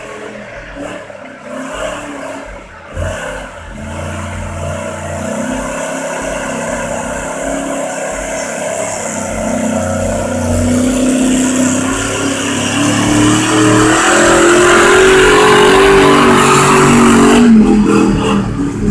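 Lifted 4x4 SUV on oversized mud tires ploughing through a flooded mud pit, its engine revving and climbing in pitch as it grows louder, with the rush of spraying water and mud. The engine note drops off sharply near the end.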